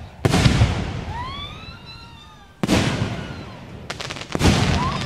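Aerial fireworks bursting close by: three loud booms about two seconds apart, each trailing off in a rumble. A rising and falling whistling tone sounds between the first two, and a quick run of crackles comes just before the third.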